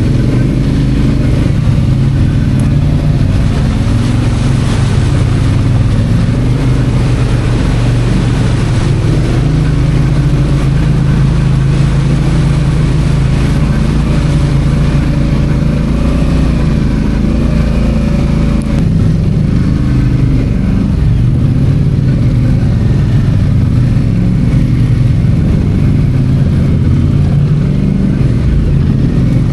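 ATV engine running steadily while riding a trail, its note rising and falling as the throttle changes.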